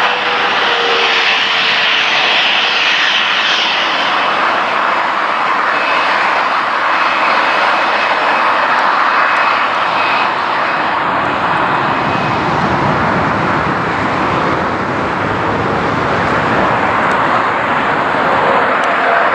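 Boeing 747-400's four jet engines at takeoff power during the takeoff roll and climb-out: a loud, steady roar with a faint high whine, growing deeper and more rumbling in the second half.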